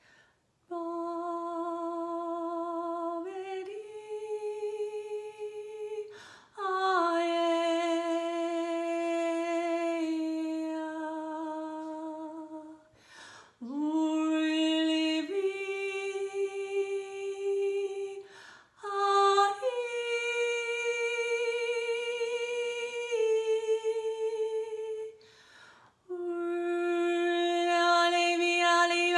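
A woman's voice toning 'light language': wordless humming and singing in long held notes a few seconds each, stepping between a few pitches, with short breaths between them.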